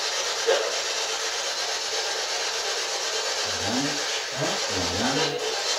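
Spirit box (PSB11) hissing with steady radio static as it sweeps, with a short blip about half a second in and low, garbled voice-like fragments breaking through from about three and a half seconds.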